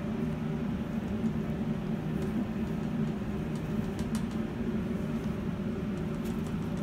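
A steady low mechanical hum, with a few faint light clicks.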